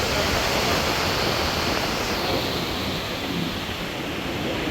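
Steady rushing of wind across the microphone mixed with rough surf washing on the shore.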